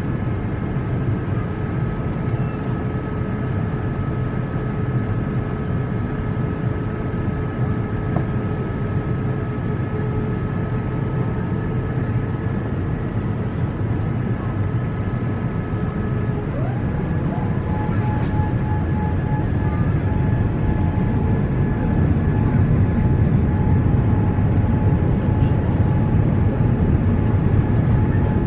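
Airliner cabin noise in flight: a steady low roar of engines and airflow with thin whining engine tones over it. About 17 seconds in, the tones shift and a new higher whine slides in, and the roar grows slightly louder toward the end.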